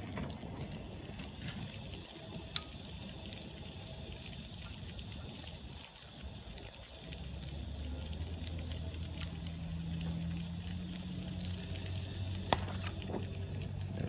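Oxy-acetylene torch flame hissing steadily as it is held on a copper tube long enough to overheat it, with two sharp pops, one about two and a half seconds in and one near the end. A low hum joins about halfway through.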